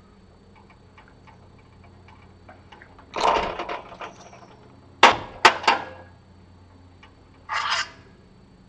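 Metal-on-metal hand-tool work on a steel machine skate: light ticking as a tool is turned in the roller block, a rattling scrape about three seconds in, three sharp metal clinks around five seconds, and another short rattle near the end.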